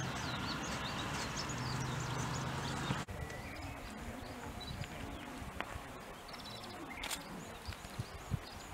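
Outdoor ambience with small birds chirping, over a low steady hum. About three seconds in, the sound cuts to quieter ambience with only scattered chirps and one short rapid trill.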